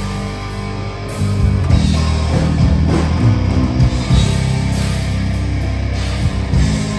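A live heavy band playing loud: distorted electric guitars, bass and a drum kit, getting louder about a second in.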